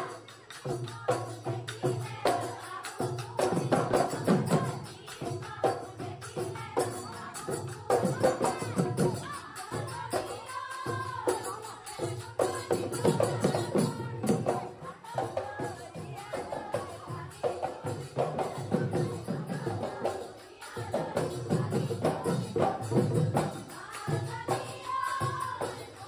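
Background music with rhythmic percussion.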